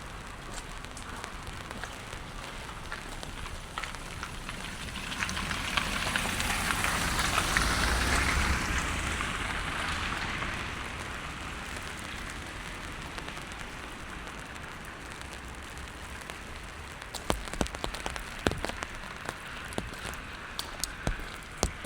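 Steady rain falling on wet pavement. A louder hiss swells and fades about five to eleven seconds in, and a scatter of sharp ticks comes near the end.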